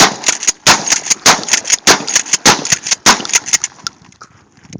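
Shotgun firing a rapid string of shots: about six loud reports roughly half a second apart, with fainter cracks between them, stopping a little under four seconds in.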